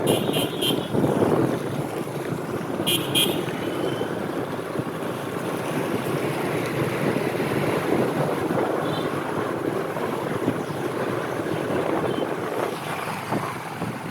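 Steady wind noise on the microphone mixed with motorbike and road traffic noise. Two short bursts of high horn beeps sound, one right at the start and another about three seconds in.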